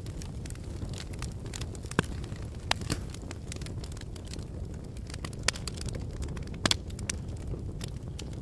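Wood fire in a fireplace crackling, with scattered sharp snaps and pops over a steady low rumble of burning.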